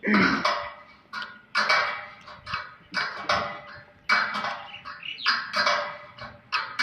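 Wrench clinking on a solar-mount hang bolt and its metal rail as the nut is tightened, a sharp metal clink about once a second, each ringing briefly.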